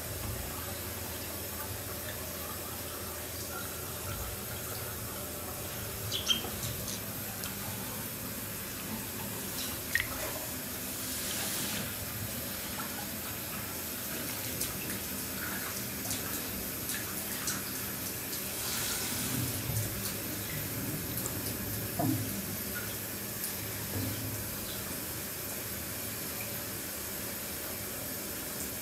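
Tap running a thin stream into a full bathtub, a steady pouring of water. A few sharp knocks and louder splashes and sloshing come as a person moves and sits down in the water.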